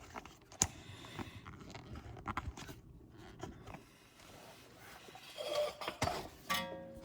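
Faint scattered clicks and scrapes of something being handled and adjusted by hand, with a sharper click about half a second in and another near the end, followed by a brief squeak.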